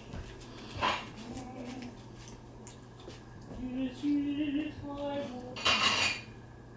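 A dog sneezes once, forcefully, in a sharp noisy burst near the end, after a shorter, softer puff of breath about a second in.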